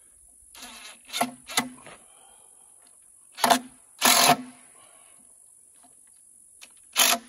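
Cordless drill driving screws through a 2x4 into a bracket on a log, running in several short bursts of a second or less, the longest about four seconds in.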